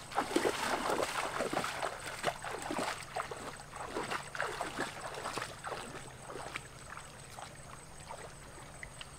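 Footsteps wading through a shallow stream, each step a short splash, about two a second, growing fainter as the walker moves away.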